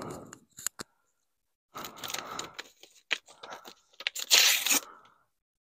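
Package packaging being torn and handled: irregular ripping and crinkling with a few sharp clicks, the loudest rip about four seconds in.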